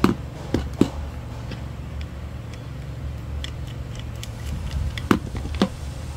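A handful of sharp clicks and knocks from a screwdriver and screws on the hard plastic casing of a back massager being taken apart: three in the first second and two more near the end. Under them runs a steady low hum.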